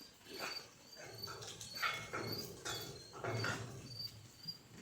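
Faint goat-pen sounds, several short noisy rustles among the goats, with an insect chirping about twice a second in the background.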